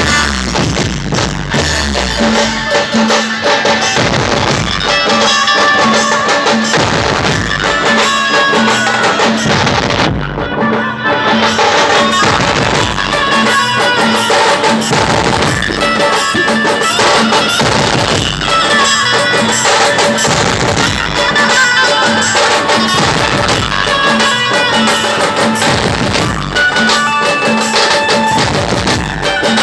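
Dhumal band music: loud, driving drums under a repeating melodic line, with a steady pulsing beat throughout.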